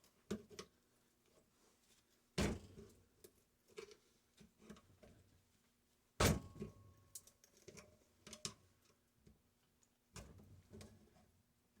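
Scattered knocks and clunks of metal parts and tools being handled while a sealed refrigeration compressor is taken apart for its copper. About seven separate knocks, the two loudest about two and a half and six seconds in.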